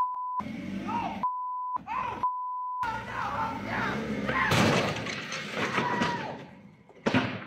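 Three short, steady censor beeps over a voice, then a wooden shed topples off a forklift's raised forks and crashes to the ground about four and a half seconds in, amid raised voices.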